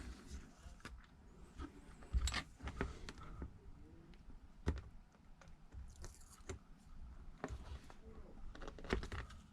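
Faint, scattered clicks and taps of fingers and a small tool working at a replacement tablet screen while stubborn adhesive tape is picked and peeled off it, with a few sharper taps about two, four and a half and nine seconds in.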